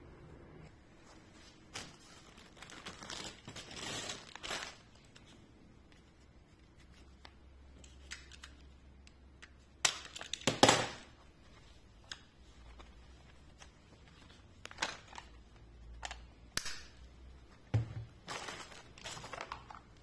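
Plastic packaging crinkling and rustling in irregular bursts, with a few light clicks of small plastic parts being handled; the loudest crinkle comes about halfway through.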